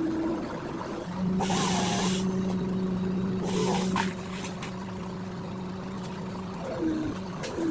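An engine running steadily at one constant pitch, with two short bursts of hissing or rustling, the first about a second in and the second near the middle.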